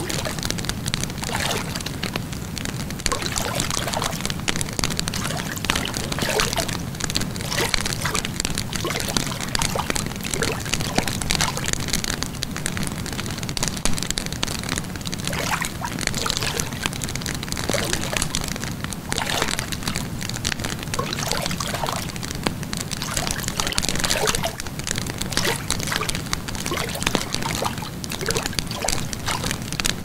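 Wood fire crackling steadily: dense, irregular pops and snaps over a constant low rumble.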